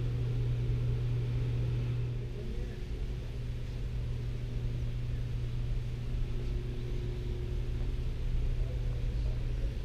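Steady low hum of indoor background noise, with a fainter higher drone over it, easing slightly after about two seconds.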